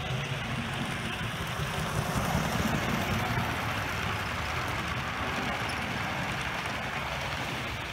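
HO-scale model train running on the layout: a steady rumble and whir of the motor and of the wheels rolling on the rails, a little louder for a moment as the passenger cars pass close by.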